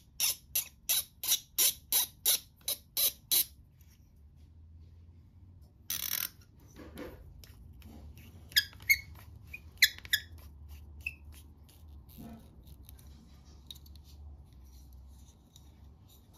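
Kohler sink pop-up stopper being screwed onto its stem by hand, giving a quick run of sharp high clicks, about three a second, for the first few seconds. After that come a brief rustle and a few scattered softer clicks.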